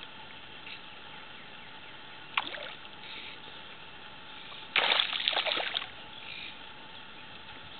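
Hooked largemouth bass splashing at the surface on a fly line: one short splash about two and a half seconds in, then a louder burst of thrashing and splashing lasting about a second near five seconds in, over a steady water hiss.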